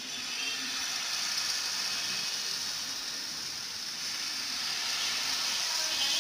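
Spoonfuls of palmyra palm fruit (tal) batter sizzling in hot oil in a frying pan: a steady, bright hiss of frying that starts as the first spoonful goes in.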